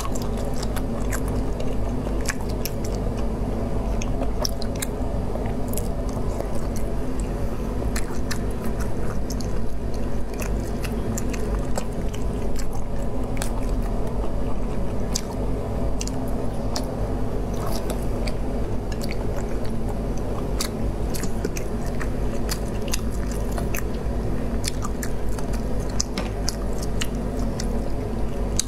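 Close-up eating sounds: wet chewing, biting and smacking as pieces of sauce-covered shellfish are eaten by hand, with many small sharp clicks throughout. A steady low hum runs underneath.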